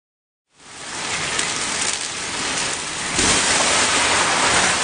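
Pan fire of burning cooking oil on a stovetop, flames making a loud, steady noise that comes in shortly after the start and swells louder about three seconds in.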